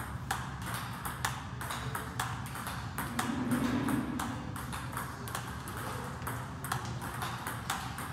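A table tennis ball being hit back and forth in a practice rally: a run of sharp clicks off the paddles and the table, about two to three a second.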